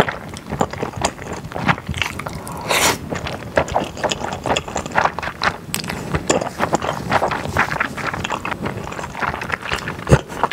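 Close-miked eating of saucy stir-fried thick glass noodles and beef brisket: a steady run of wet, sticky chewing and mouth clicks.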